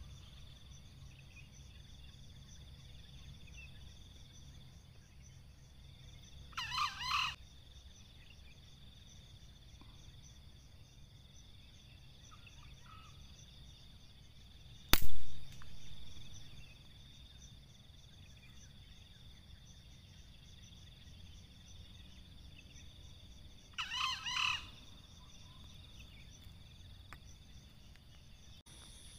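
Green junglefowl rooster crowing twice, each a short call of under a second, about 17 seconds apart. Midway between the two crows a single sharp air-rifle shot cracks out, the loudest sound, with a brief decay after it.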